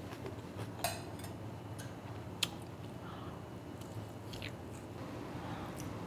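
A person chewing a mouthful of food with the mouth closed, quietly, with a few faint clicks.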